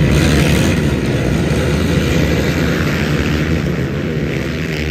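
A pack of racing quads (ATVs) accelerating hard off the start line, many engines running at full throttle together in one dense drone that is loudest at first.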